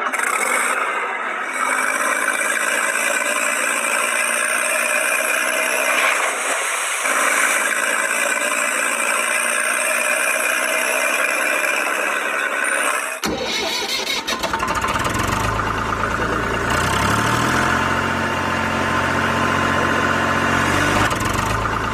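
Motor vehicle engine running, an engine sound effect laid over toy tractor footage. About 13 seconds in it cuts abruptly to a deeper engine sound whose pitch rises and falls, like revving.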